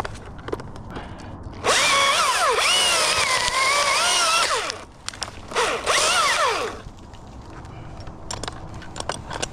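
Chainsaw cutting in two bursts, a long one and then a shorter one, its pitch sagging and recovering as the chain loads up in the wood.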